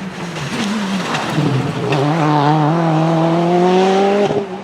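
Ford Focus WRC rally car's turbocharged 2.0-litre four-cylinder accelerating: after an uneven first second or so, the engine note climbs steadily and loudly, then drops off sharply just before the end. A couple of sharp cracks come in the first two seconds.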